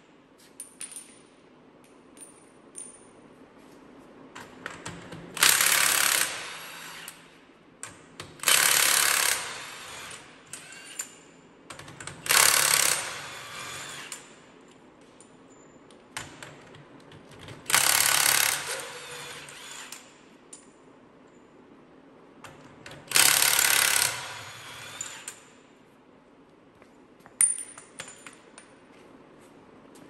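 Cordless impact wrench hammering on the lug nuts of a sprayer's wheel hub in five bursts of about two seconds each, with small metal clinks of nuts and socket between the runs.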